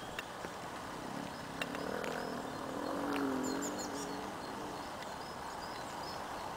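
Footsteps in dry leaf litter and undergrowth with a few sharp twig snaps, and a faint low hum that swells and fades in the middle. Brief high bird chirps come about four seconds in.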